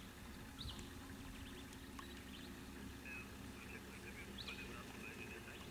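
Faint outdoor ambience: a steady low hum under a few short, high bird chirps.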